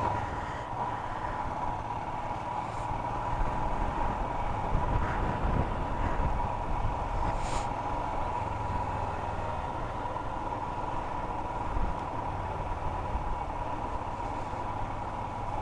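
Motorcycle running at low town speed, heard from the rider: a steady low engine and road rumble with a thin steady hum above it and a few light clicks.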